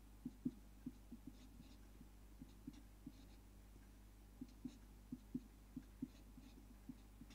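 Felt-tip marker writing on paper: faint short taps and strokes at an uneven pace as figures are written out.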